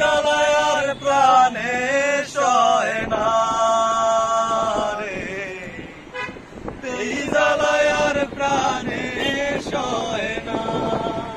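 A man singing a Bengali song, drawing out long notes whose pitch bends and wavers. The singing breaks off briefly about halfway through and then resumes.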